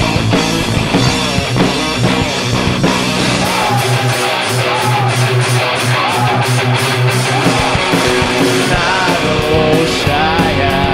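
Rock band playing an instrumental break live: guitar carrying the melody over bass and drums, with evenly spaced cymbal strokes coming in about three and a half seconds in.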